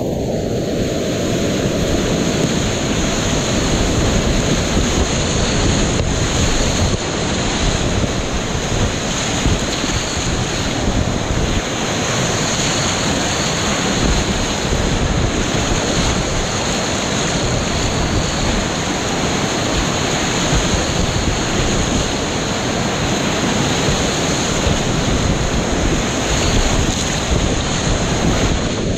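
Whitewater rapids rushing steadily all around a kayak, loud and close, with wind and spray buffeting the microphone.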